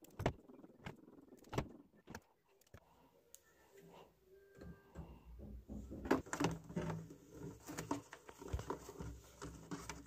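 Close handling noise of wire, tubing and a plastic cooler housing: a few sharp clicks in the first three seconds, then denser rustling and knocking from about halfway through.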